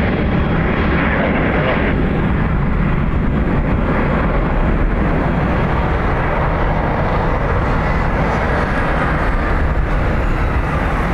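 Boeing 767 freighter's two General Electric CF6 turbofans at takeoff power as the jet climbs away after departure: a loud, steady jet rumble, heaviest in the low end, with the higher hiss thinning slightly as it recedes.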